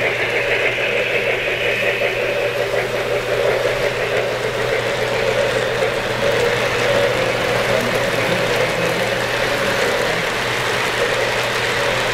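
Three-rail O-scale model freight train rolling past on a curve: a steady rumble of metal wheels on the track, with a steady low hum underneath.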